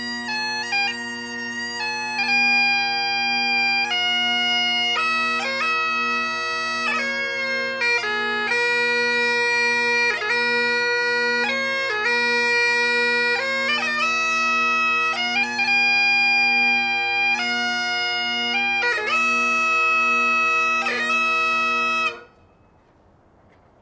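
Bagpipes playing a piper's lament: a melody over steady drones, which stops abruptly near the end.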